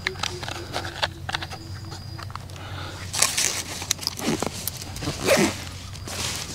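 Rustling and scraping of packaging with small clicks and knocks as a grilled chicken is unpacked and laid out.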